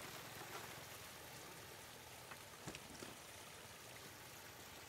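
Shallow floodwater running over gravel and stones: a faint, steady rush of water, with a few short knocks about two and a half to three seconds in.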